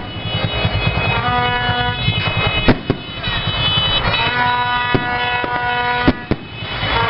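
Aerial fireworks shells bursting, five sharp bangs: a pair about two and a half seconds in, one near the five-second mark and another pair shortly after six seconds, over music with long held notes.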